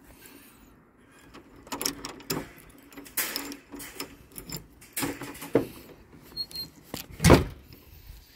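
An irregular series of knocks and clattering rattles from something being handled, the loudest one a little before the end.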